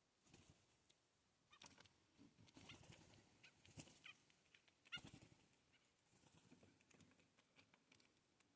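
Faint wing flaps of Canada jays landing on and leaving an outstretched hand, with a few short soft calls; the loudest flap comes about five seconds in.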